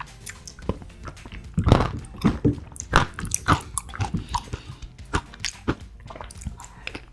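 Close-miked eating sounds of a person taking spoonfuls of thick homemade yogurt: repeated wet smacks and slurps, loudest in a cluster about two seconds in.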